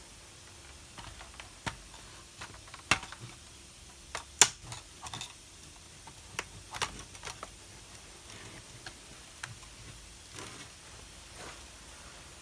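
Plastic snap clips of a Dell Inspiron N5010 laptop's case clicking and snapping as the base is pried away from the top half with a plastic pry tool. The clicks come irregularly, the loudest about four and a half seconds in.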